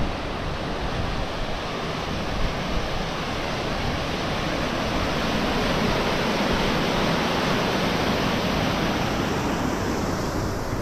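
Water rushing down a concrete spillway chute: a steady whitewater rush that grows a little louder in the middle and sounds duller near the end.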